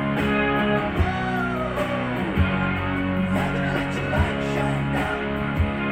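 Rock music with guitar, a singing voice and drum hits.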